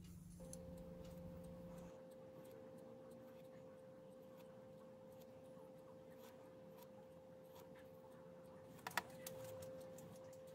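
Pen-style micro motor grinder running with a faint, steady high whine, its pink abrasive stone point held against the silver fitting on a wooden knife handle, with light ticking from the contact. The whine starts about half a second in, and a couple of sharp clicks come near the end.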